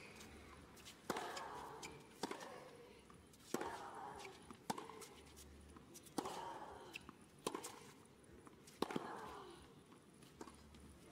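Tennis rally on a hard court: about seven racket-on-ball strikes, one every second and a quarter or so, traded between two players. Each strike is followed by a short grunt.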